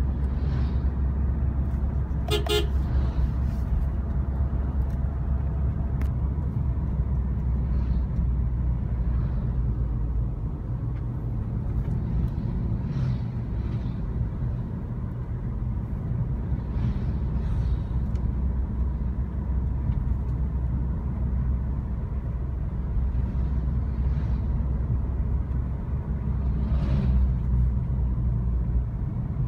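Steady low road and engine rumble heard from inside a moving car's cabin, with one short vehicle horn toot about two and a half seconds in.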